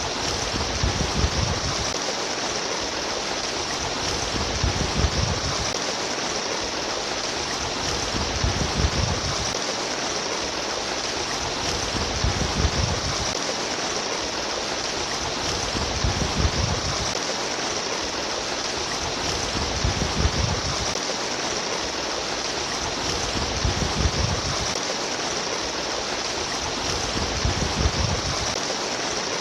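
Flowing stream water rushing and babbling steadily, with a low surge that comes back about every four seconds.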